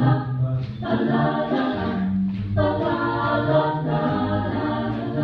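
School choir singing in long held phrases, with brief breaks between them.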